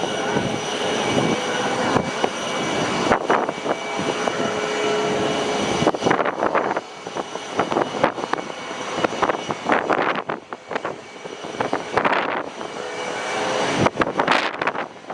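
Jet airliner engines running on a landing approach, a steady whine inside a loud rush. Strong gusty wind buffets the microphone in uneven bursts throughout.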